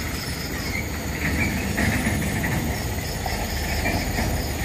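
A low vehicle-engine rumble grows gradually louder. Insects chirp faintly in an even pulse above it.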